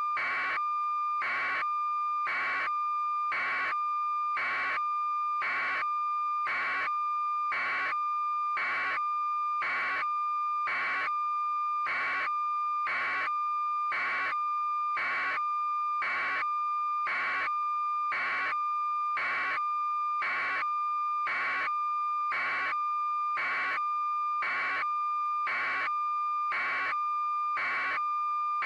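Steady high electronic tone with a short pulse repeating about once a second, an alarm-like test signal.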